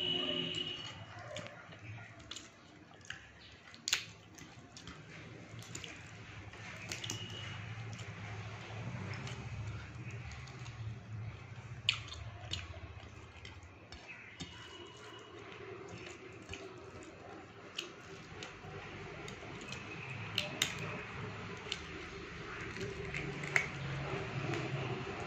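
Eating by hand: wet squishing as rice is mixed with curry on a plate, and chewing, with many short scattered clicks of mouth and fingers.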